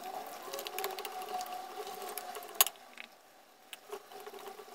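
Wire whisk beating flour into a thick batter in a glass bowl, its wires ticking and clinking rapidly against the glass, with one sharp clink a little over halfway through and a brief lull after it.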